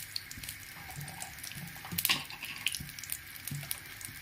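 Hot ghee sizzling with a whole dried red chilli in it for a tadka: a steady hiss with scattered crackling pops, one louder about two seconds in.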